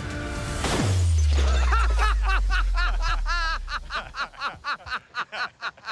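A heavy falling weight lands with a sudden crash about a second in, followed by a deep boom that rings on for a few seconds. Quick repeated chuckling laughter starts soon after the impact and carries on to the end.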